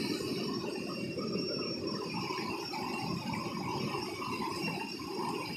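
Shallow river rushing over rocks and small rapids, a steady churning wash of water.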